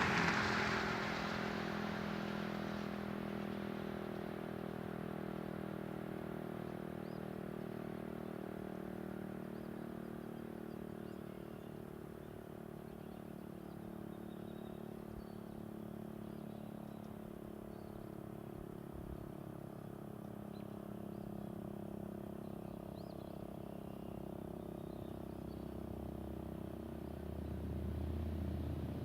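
Federal Signal STL-10 siren dying away over the first two or three seconds as it winds down after the test. A steady low engine drone follows, with a vehicle rumble building near the end.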